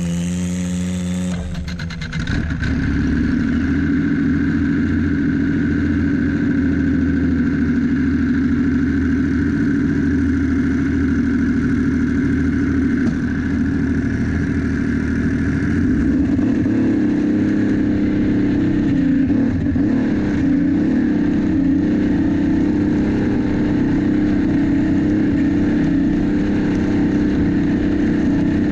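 Turbocharged Yamaha-engined racing snowmobile revved in a few quick blips, then held at a steady high pitch, with a slight shift in its tone about halfway through.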